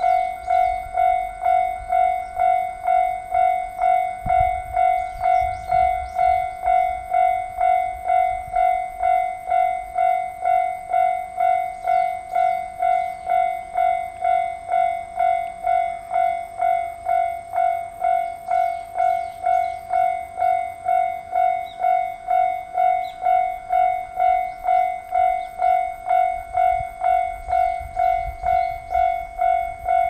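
Japanese railway level-crossing warning bell ringing steadily while the crossing is active, with just under two even dings a second.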